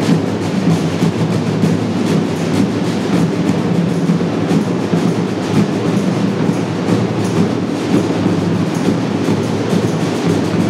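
Brazilian samba drum group (batucada) of surdo bass drums and other metal-shelled drums playing a loud, dense, driving rhythm without a break.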